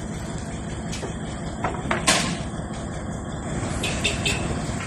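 Steady low rumble of a truck engine running, with a few sharp knocks of heavy wooden timbers being handled, the loudest about two seconds in and a smaller cluster near the end.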